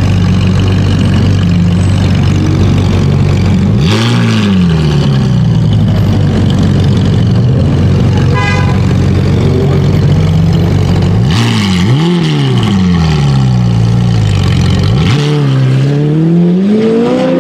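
Sports car engine running loudly at idle, revved several times so that its note climbs sharply and falls back: once about four seconds in, twice in quick succession around twelve seconds, and once more near the end.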